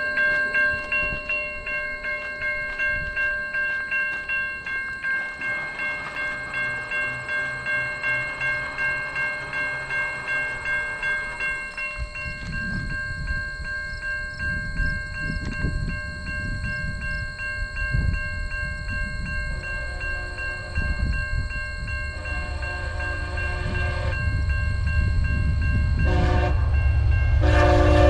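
Level-crossing warning bells ringing steadily, with wind gusting on the microphone. From about two-thirds of the way through, an approaching VIA Rail passenger locomotive sounds its horn in the grade-crossing pattern (long, long, short, long) while the rumble of the train grows louder.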